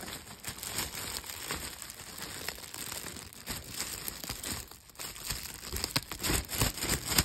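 Clear cellophane basket wrap crinkling and crackling as it is handled, louder near the end.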